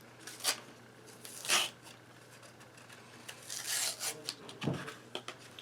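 Hard plastic packaging of an SD card being pried and torn at by hand: a few sharp rasping scrapes, then a longer rustle and a dull knock near the end.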